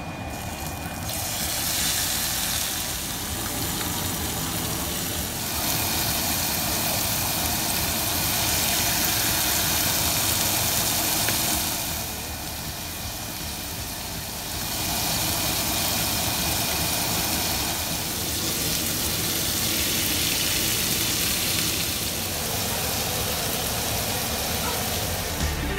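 Marinated chicken thighs sizzling on a hot ridged grill pan as pieces are laid down one after another. The hiss swells and dips several times.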